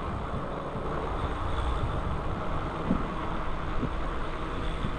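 Steady rush of wind on the microphone and tyre noise from an e-bike being ridden.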